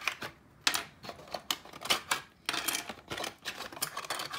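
Plastic desk-stand parts being pulled out of a cardboard box and set down on a table: irregular rustling and scraping of cardboard with a few sharp plastic clicks and taps.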